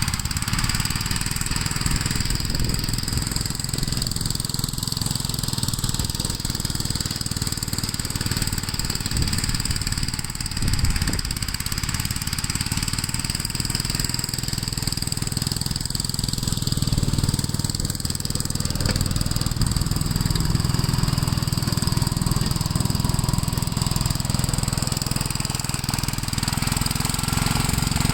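Gravely walk-behind tractor engine running steadily, a little louder and heavier in its low tones during the last third.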